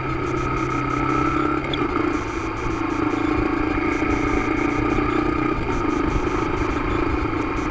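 Motorcycle engine running steadily at low road speed, heard from a camera mounted on the bike, with road and wind noise underneath.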